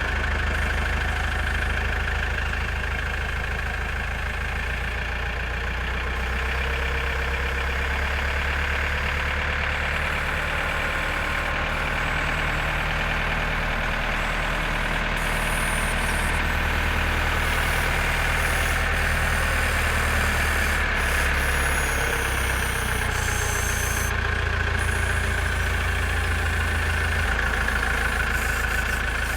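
JCB 4CX backhoe loader's diesel engine running steadily, its note shifting a little now and then.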